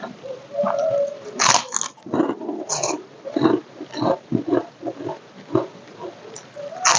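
Close-miked chewing of crispy fried egg, rice and crackers: irregular crunches and wet mouth and lip sounds, with sharper crisp bites about a second and a half in, near three seconds, and at the end.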